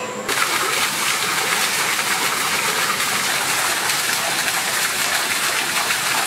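Water splashing steadily into a koi pond, an even rushing noise that starts abruptly just after the start.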